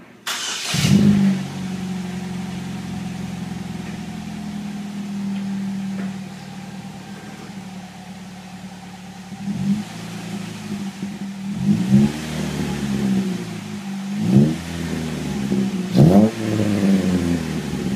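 Chevrolet Cobalt's four-cylinder engine through a MagnaFlow exhaust, heard at the tailpipe: it cranks and starts just after the beginning with a brief loud flare, then idles steadily. In the second half it is revved in several short throttle blips.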